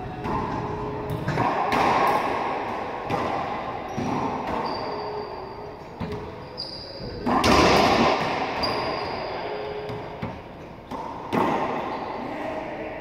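Racquetball rally: the ball cracks off racquets and the court walls in a string of hits, each followed by a booming echo, the loudest about seven and a half seconds in. Short high squeaks, typical of sneakers on the hardwood floor, come between the hits.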